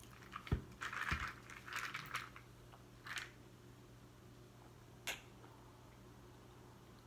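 Faint eating and drinking sounds: two light knocks as a plastic cup is taken up, crackly mouth noises over a mouthful of sticky peanut butter sandwich, then sips of water with one short click about five seconds in. The water is to wash down the sticky sandwich.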